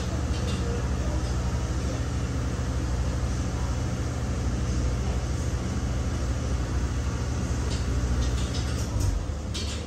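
Passenger boat's engine running steadily under way, a low drone with water rushing along the hull. About nine seconds in, the engine note shifts lower and quieter.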